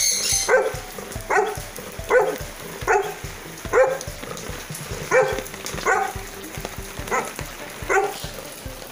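Golden retriever barking over and over, short barks roughly one a second: a hungry dog's demand barking.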